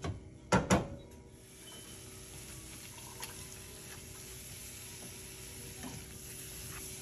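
Raw ground meat starting to sizzle in a skillet as a spatula breaks it up, the hiss building over the first couple of seconds, with faint scraping and clicks. Two sharp knocks of the spatula against the pan come about half a second in.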